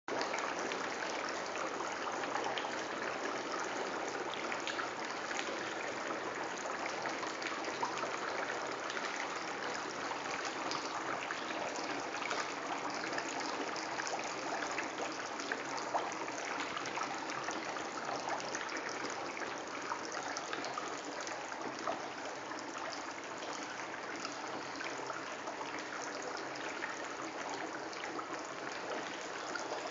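Dry ice bubbling steadily in water in a cauldron, a continuous fizzing with many small pops as it gives off fog.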